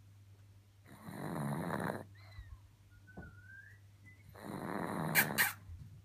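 A pug snoring in its sleep: two long rasping snores about three and a half seconds apart, the second ending in two sharp hissy bursts. A faint thin rising whistle comes between them.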